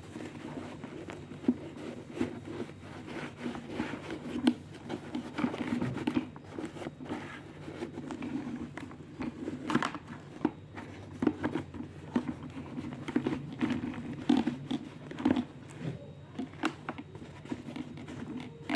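Irregular handling noises of an unboxing: crinkling packaging and scattered clicks and knocks of plastic parts being handled.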